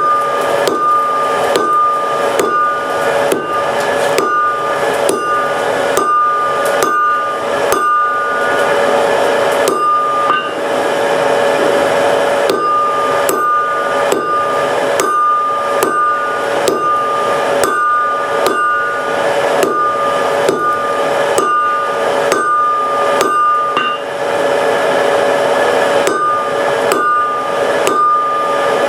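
Blacksmith's hand hammer striking iron on an anvil in a steady rhythm of about two blows a second, the anvil ringing between blows. The blows pause briefly about ten seconds in, then resume.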